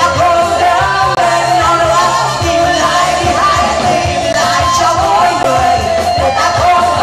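Live band playing an upbeat rock-style song, with several voices singing together into microphones over electric guitar, drums and a steady bass line.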